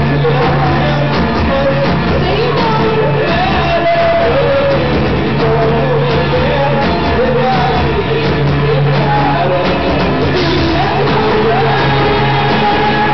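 Live rock band playing: singing over keyboards and electric guitar, with a steady low note underneath.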